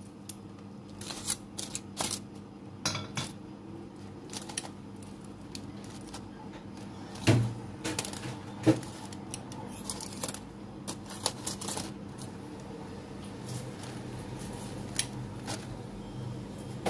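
Metal kitchen tongs clicking and scraping against aluminium foil and the pan while chicken wings are turned over: irregular light clicks and knocks, with two louder knocks near the middle. A faint steady hum runs underneath.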